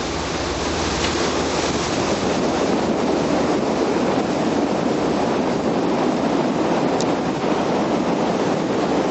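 Steady rushing of wind on the microphone and water washing along the side of a boat.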